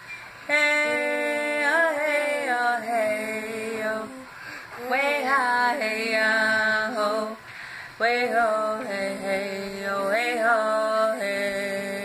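A woman singing unaccompanied in long held notes that bend in pitch at the start of each phrase. There are four phrases, with short breaths between them.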